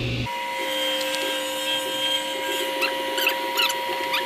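Woodworking power tool running with a steady high whine as it cuts a wooden board, with short high squeaks in the last second or so.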